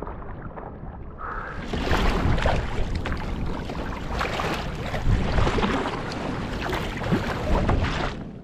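Kayak being paddled through choppy sea: paddle blades splashing and water washing around the hull, with wind rumbling on the microphone. It becomes louder and brighter about two seconds in.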